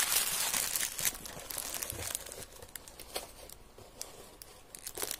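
Clear plastic bag packaging crinkling and crackling as a wrapped idol is handled and lifted out. It is loudest in the first couple of seconds, then softer with scattered crackles.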